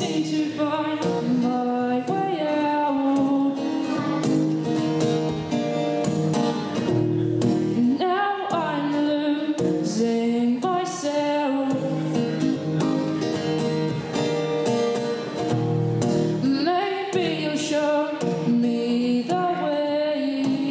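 A woman singing while strumming an acoustic guitar, live.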